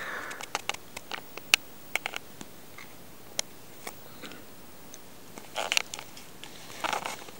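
Faint handling noise from a magazine and camera: scattered light clicks in the first couple of seconds, then two short soft rustles of paper near the end.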